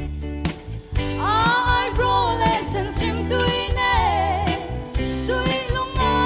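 A woman singing into a microphone over band accompaniment with drums and bass. Her voice comes in about a second in.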